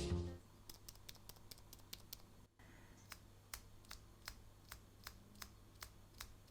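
Akko V3 Fairy Pro silent linear switches being pressed, faint soft clicks at about three a second.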